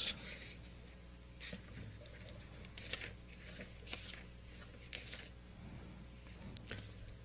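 Faint paper rustling: pages of a book being leafed through, in a series of short rustles about once a second.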